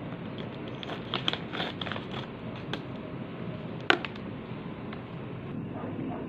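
Plastic food packaging handled, with scattered light crinkles and clicks and one sharper click about four seconds in, over steady background noise.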